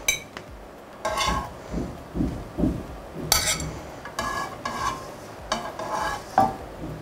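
Metal tongs lifting cooked chicken breasts out of a frying pan into a ceramic bowl: sharp clinks and scrapes of metal on pan and bowl about once a second, some with a short ring.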